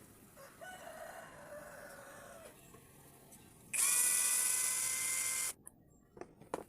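Roosters crowing twice: a fainter crow about half a second in, then a much louder, harsher crow in the middle that cuts off abruptly.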